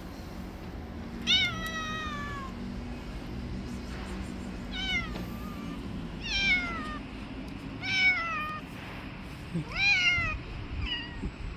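A hungry orange-and-white street cat meowing for food: about six separate meows, each falling in pitch, the first the longest and the last short and faint.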